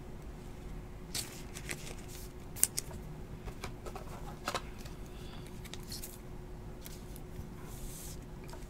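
Faint clicks and rustling of trading cards being handled, with one sharper click about two and a half seconds in, over a faint steady hum.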